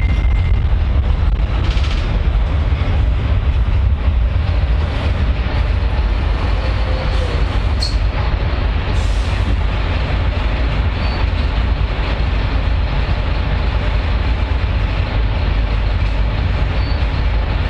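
Train running on the rails: a steady, loud low rumble with a few brief clicks and squeaks along the way.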